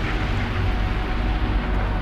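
Underground tunnel ambience: a steady deep rumble with a faint hum of a few held tones over it.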